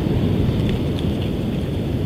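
Wind buffeting the microphone on an open beach: a steady low rumble, with a couple of faint ticks.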